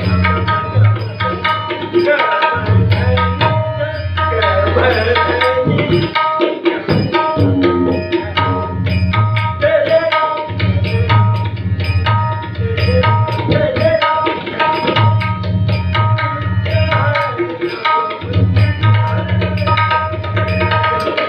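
Tabla playing a fast run of strokes, with stretches of deep bass strokes that come and go, over a few steady held tones from an accompanying instrument.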